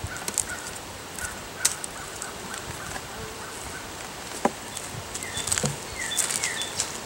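A metal hive tool prying between the wooden frames of a nuc box: scattered clicks, knocks and scrapes of metal on wood, one sharper knock about four and a half seconds in and a cluster near the end. Birds chirp faintly behind.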